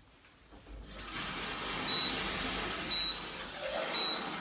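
Kitchen tap running, filling a jug with water, with a steady rushing hiss starting about a second in. Three short high beeps about a second apart sound over it.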